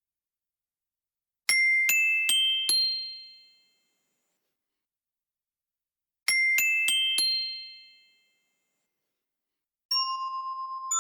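Glockenspiel playing the Japanese 'pin-pon-pan-pon' announcement chime: four rising struck notes that ring out, then after a pause a slightly quicker rising four-note version. Near the end a lower, wavering chime tone begins.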